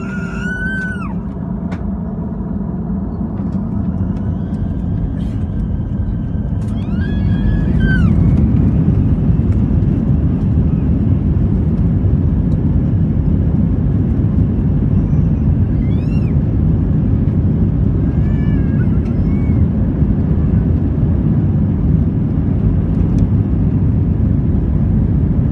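Airbus A320 takeoff roll heard inside the cabin: a low rumble from the engines and the runway that grows louder over the first eight seconds or so, then holds steady.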